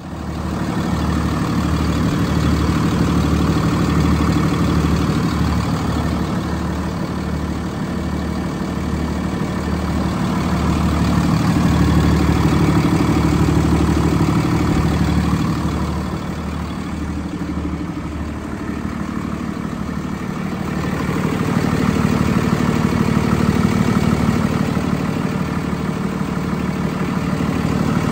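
Freightliner M2 106's diesel engine idling steadily, heard up close at the open engine bay, with a low pulsing throb.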